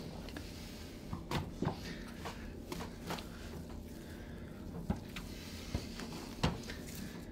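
Dough being kneaded by hand in a wooden trough: scattered sticky slaps, squelches and knocks as the hands pull and fold the dough against the trough's sides, over a steady low hum.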